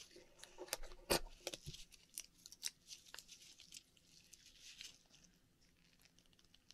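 An Akoya oyster being opened and its pearl dug out of the flesh: a scatter of faint clicks from shell and tool with soft tearing, one sharper click about a second in, the clicks thinning out over the last couple of seconds.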